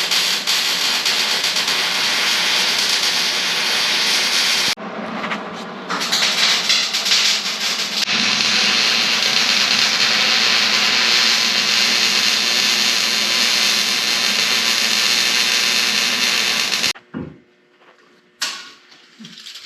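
Electric arc welding: the arc's steady crackling hiss, broken off briefly about five seconds in, then resumed, and stopping abruptly near the end.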